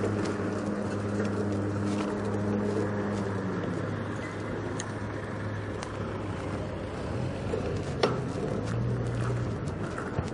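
Street riding on a bicycle: steady wind and road noise with a low motor-vehicle engine hum that fades after about three seconds and comes back faintly later, and one sharp click about eight seconds in.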